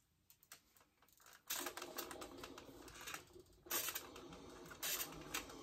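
Clothes iron pressing fabric on a padded ironing board. Quiet at first, then from about a second and a half in a steady rustling and clicking, with two short, louder hisses near the end.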